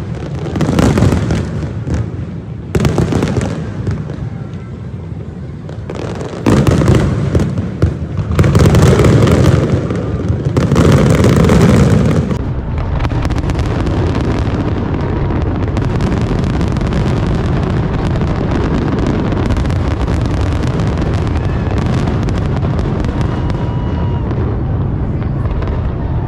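Aerial fireworks display: a run of loud booming bursts over roughly the first twelve seconds, then a steady, dense din of overlapping bursts and crackle.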